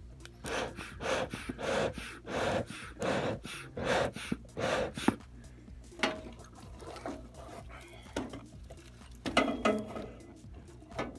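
Hand-pumped bellows of a beekeeper's smoker puffing air into smouldering pine needles, a regular run of short puffs over the first five seconds or so. Then wood chips are dropped into the smoker's metal can, with a few clicks and a louder rustle near the end.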